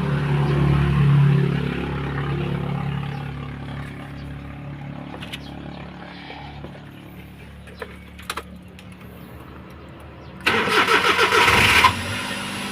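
Suzuki Multicab engine starting: a low engine hum fades over the first few seconds, then about ten and a half seconds in there is a loud burst of starting for over a second before it settles to a steady lower running sound.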